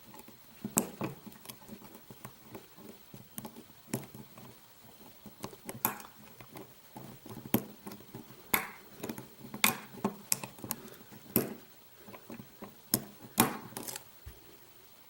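Lock pick and tension wrench working the pins of a challenge padlock with serrated pins: irregular light clicks and scratches, some sharper than others.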